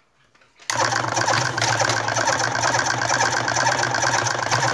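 Hopper-fed electric cigarette-tube filling machine (silim / topomatic type, 12 V) switching on about two thirds of a second in and running steadily, filling an empty filter tube with tobacco. The motor gives a constant hum under a fast, even clatter from the mechanism.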